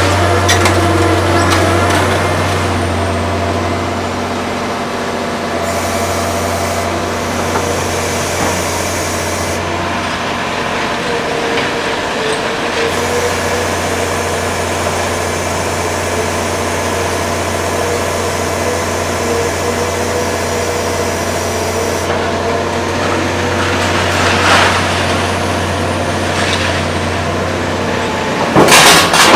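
Heavy diesel construction machinery running steadily with a low hum while a high-reach demolition boom section is handled. A few sharp metallic clanks near the end.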